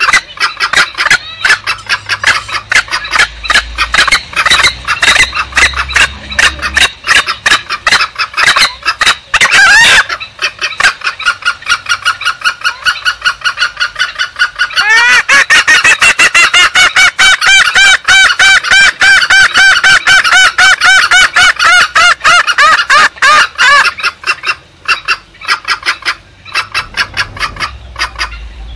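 Green junglefowl calls played as a hunting lure, a rapid, continuous run of clucking notes. About fifteen seconds in, a fast rising note leads into a long, even train of pulsed calls lasting roughly nine seconds.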